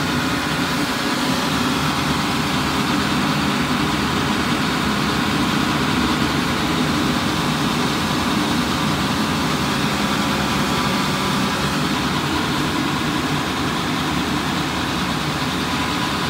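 Engine-driven transfer pump running steadily and loudly while it sucks chemical out of the induction cone into the sprayer tank.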